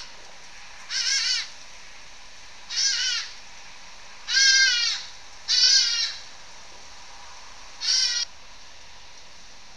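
An animal's high, wavering, bleat-like call, repeated five times at intervals of one to two seconds, each call about half a second long, over a steady background hiss.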